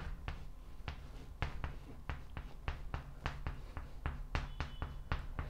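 Chalk writing on a blackboard: an irregular series of sharp taps and short scrapes, about four a second, as the letters are stroked on.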